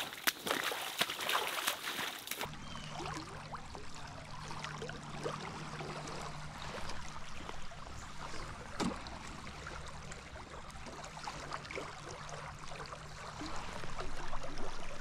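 River water running and trickling steadily, with scattered faint clicks. About two and a half seconds in the sound changes abruptly and a low steady hum joins the water.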